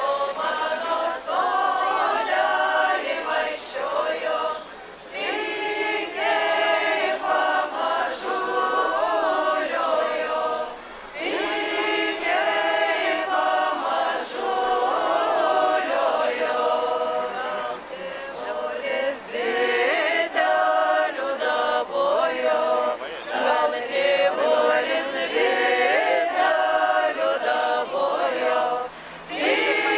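A group of women singing a Lithuanian folk song a cappella in several voices, in sung phrases with short breaks between them.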